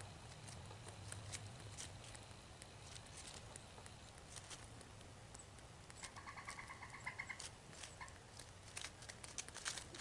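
Gray squirrel lapping water from a plastic dish: a fast run of faint wet ticks and clicks that grows denser near the end. A short rattling call sounds about six seconds in.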